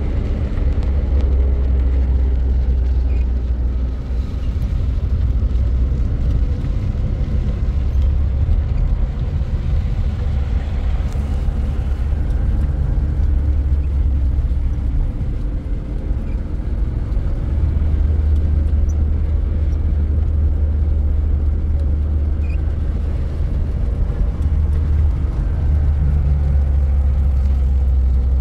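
Motor vehicle on the move: a steady, loud low engine and road rumble, with faint engine tones that drift slowly up and down in pitch.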